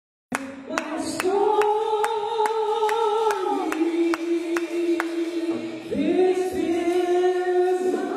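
Slow gospel singing with long held notes, over a sharp tap that keeps a steady beat about twice a second for the first five seconds. The sound starts and cuts off abruptly.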